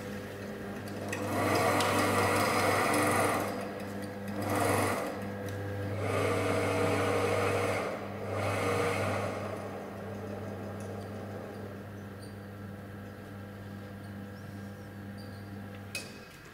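ESAB MHS 1000TT welding positioner's electric tilt drive tilting the table through its toothed segment gear at variable speed. A steady motor hum has several louder whirring stretches in the first nine seconds, runs quieter after that, and stops with a click near the end.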